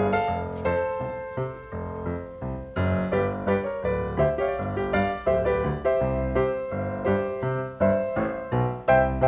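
Background piano music, a steady run of notes over low bass notes.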